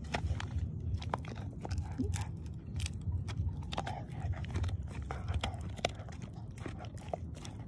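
A pit-bull-type dog gnawing on a white dental chew bone held in a hand: irregular crunching and teeth scraping, with several sharp clicks a second, over a low steady rumble.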